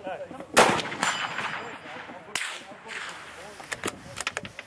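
A scoped bolt-action rifle fires once about half a second in, the shot ringing out across the range. A second, quieter shot follows about two seconds later, and a few sharp clicks come near the end.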